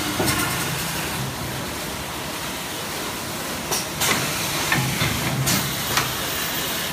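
PE-film shrink-wrap packaging machine running: a steady hiss over a low hum, with several sharp clacks from about halfway through.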